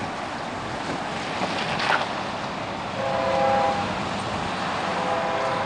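Multi-note air horn of an approaching diesel locomotive, heard at a distance: a short blast about three seconds in and another starting near the end, over steady road-traffic noise with a vehicle passing close just before two seconds in.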